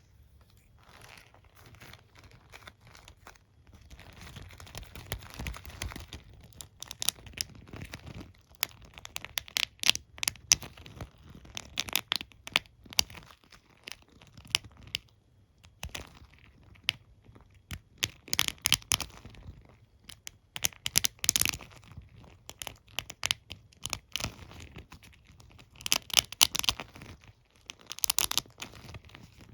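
Hairbrush and comb handled close to the microphone, their bristles and teeth scratched and flicked in a crackling run of sharp clicks. It starts as soft rustling, then comes in busy clusters after the first few seconds.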